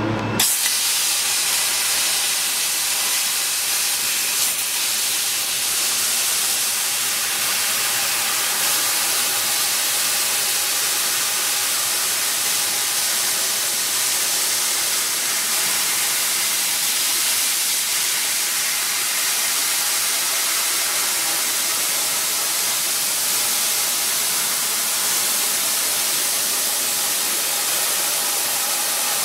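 8000 W laser cutting machine cutting 16 mm brass plate: a steady hiss of the assist gas jetting from the cutting nozzle through the cut.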